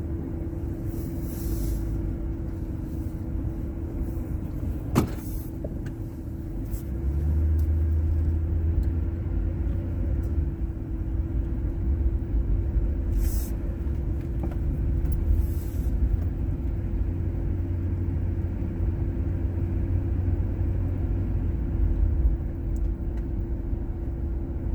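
Car running, heard from inside the cabin: a steady low engine and road rumble with a constant hum, growing louder about seven seconds in. A single sharp click about five seconds in.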